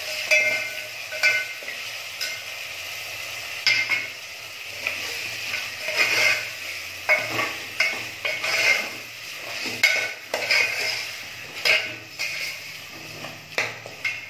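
Marinated mutton pieces frying in hot oil in a metal pot with a steady sizzle, while a spoon stirs them, scraping and knocking against the pot's sides at irregular intervals.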